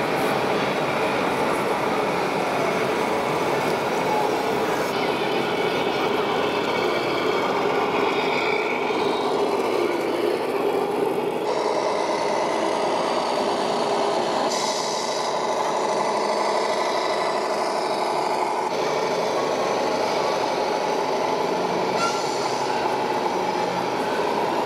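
Steady running noise of radio-controlled model trucks driving, over the hum of a busy exhibition hall. The sound changes abruptly several times, about every four to six seconds.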